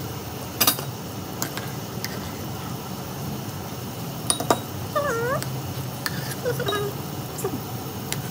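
A cat meowing twice, short bending calls about five and six and a half seconds in, over the steady bubbling of a pot of soup at a rolling boil. A few sharp clinks of a metal ladle against the aluminium pot come earlier.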